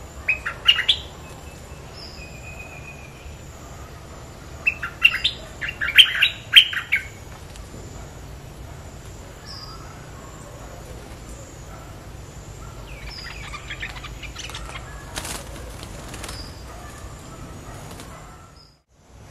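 Bulbuls calling back and forth, a caged decoy bulbul and a wild bird answering it: loud bursts of quick chirpy notes about half a second in and again around five to seven seconds in, fainter chirps midway, thin high whistles in between, and a few sharp clicks near the end over a steady low hum.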